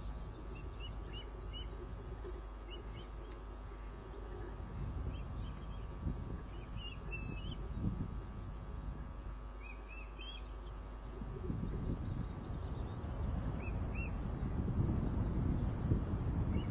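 Ospreys on the nest calling in short, high, repeated chirps, in clusters of two to four every few seconds, over a low rumble that grows heavier in the second half.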